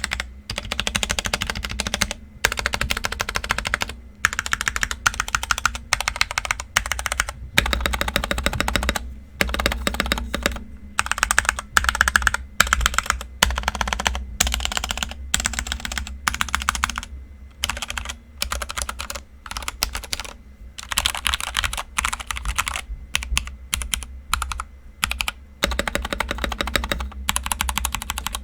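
Fast typing on a KEMOVE Snowfox DK61 mechanical keyboard with Gateron Speed Silver linear switches: rapid runs of key clacks broken by brief pauses.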